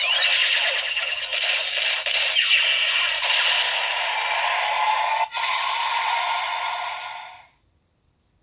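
Electronic finishing-move sound effects and music from a DX Metsubojinrai Force Riser toy, played through its small built-in speaker with rising sweeps, fading out about seven and a half seconds in.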